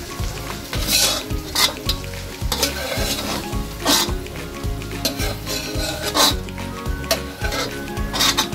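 Sliced red onions frying in hot butter in a metal wok, with a steady sizzle. A metal slotted turner scrapes and clatters against the wok several times as more onion is tipped in and stirred.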